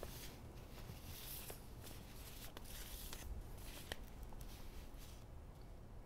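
Paper envelopes rustling faintly as they are shuffled and handled, with a few soft ticks.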